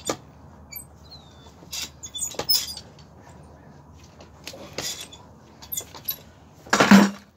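Scattered short scrapes and knocks of handling a draft horse's overgrown hoof on a wooden hoof stand, with one louder rushing burst near the end.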